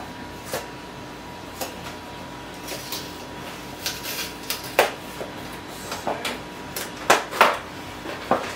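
Cardboard food box being opened by hand: a run of short crackles, snaps and tearing sounds from the paperboard flap, sparse at first and loudest near the end.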